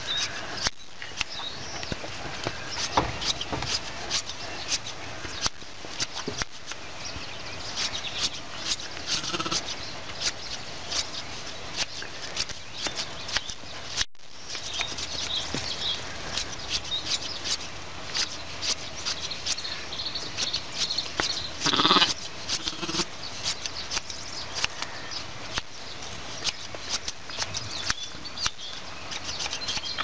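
Hand blade shears snipping through a sheep's fleece, a quick run of crisp clicks, with a sheep bleating once about two-thirds of the way through.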